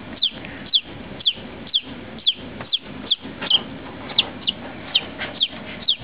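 Newly hatching chicken chick peeping: short, high, falling peeps, about two a second, over a steady faint hiss.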